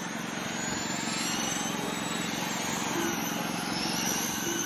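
Radio-controlled dirt oval race cars of the Mudboss class running laps, their motors giving a high whine that rises and falls in pitch as the cars pass.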